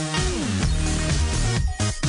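Electronic intro music with a steady beat and a falling pitch sweep about half a second in.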